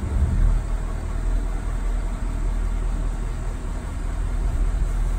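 Steady low rumble of a motor vehicle running close by.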